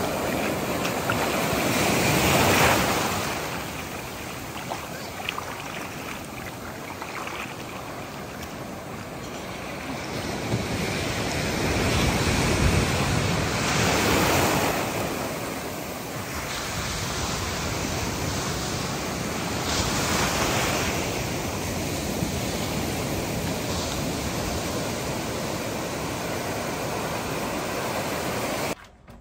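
Ocean surf breaking and washing up a beach, swelling and easing in slow surges, with wind on the microphone.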